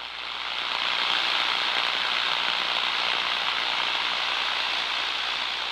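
Nuisance corona heard through an Ultraprobe 2000 ultrasonic detector: a continuous, even hiss that swells in over the first second and then holds steady. Its steadiness, without erratic pops, is the sign of harmless nuisance corona rather than destructive discharge.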